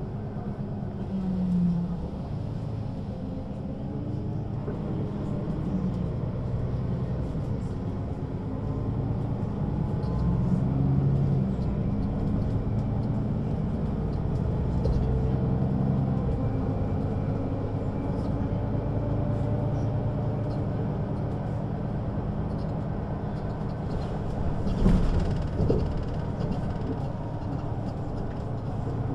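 Mercedes-Benz O 530 G Citaro G articulated bus under way, its diesel engine and ZF automatic gearbox running with the engine pitch rising several times as it pulls away and changes gear. A sharp knock sounds near the end.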